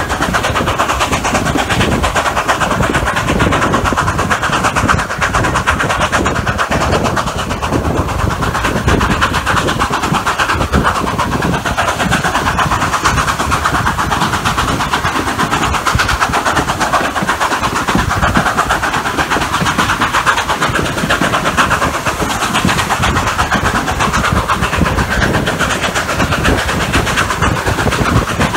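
Narrow-gauge steam train running, heard from an open gondola car: a loud, steady rumble and rattle of the wheels on the rails, without a break.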